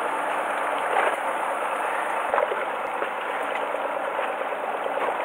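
Steady background noise aboard a small fishing boat at sea, with water moving against the hull and the boat's own running noise. A couple of faint knocks come about a second in and again just past two seconds.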